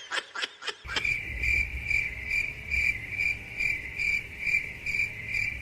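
Cricket chirping, a high steady chirp repeating evenly about twice a second, starting about a second in.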